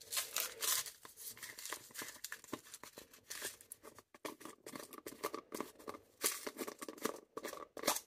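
Light, irregular clicks, taps and scrapes of fingers handling the metal parts of a Hermes 3000 typewriter carriage while working the draw band's tiny end loop onto its hook.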